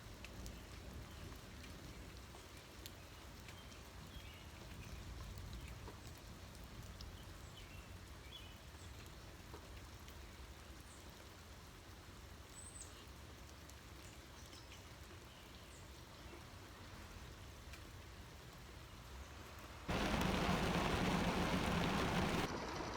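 Rain falling steadily, a soft even patter. About 20 s in, it suddenly becomes much louder and fuller, a heavy rush of noise.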